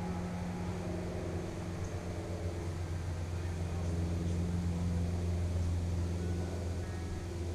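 A distant engine drones steadily at a low pitch, swelling slightly in the middle and easing off near the end.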